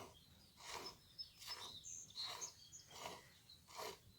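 Hand-milking a goat: milk streams squirting into a pail in a steady rhythm, about six squirts, one roughly every three-quarters of a second.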